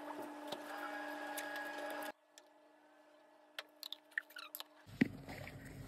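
Faint kitchen handling sounds over a steady low hum: light knocks and scrapes as bread is cut on a board and a small bowl is pressed on it, with louder clicks and knocks near the end.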